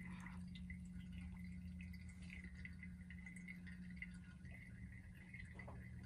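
Faint, steady trickle and drip of water in a motorised ceramic cat drinking fountain, over a low steady hum from its small pump.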